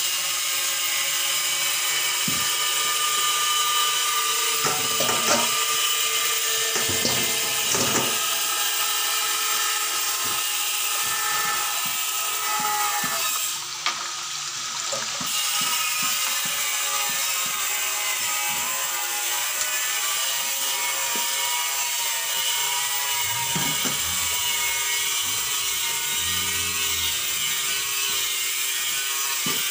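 Steady rush of water running from a garden hose into a stainless-steel sink, with scattered knocks and splashes as raw pork is handled and washed under it.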